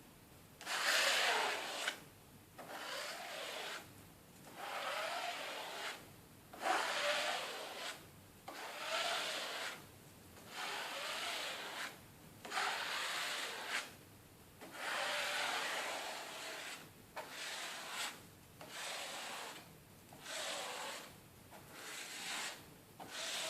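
A plastic card scraping back and forth across a jigsaw puzzle, spreading glue into the gaps between the pieces. It makes about a dozen rubbing strokes, each a second or two long, with short pauses between them.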